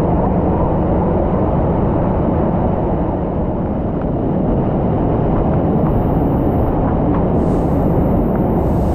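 Waterfall pouring into a plunge pool, heard close up: a loud, steady rush of churning water.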